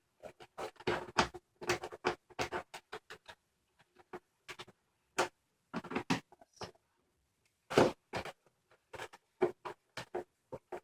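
Packaging of a boxed toy being worked open by hand: irregular scrapes, crinkles and knocks, coming in quick clusters with short pauses between them.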